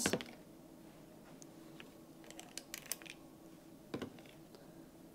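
Faint, scattered small clicks and taps of a scoop against a bowl and muffin tin while thin batter is portioned into silicone muffin liners, with one sharper tap about four seconds in.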